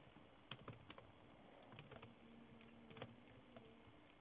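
Faint, sparse keystrokes on a computer keyboard: a handful of separate clicks a fraction of a second to a second apart.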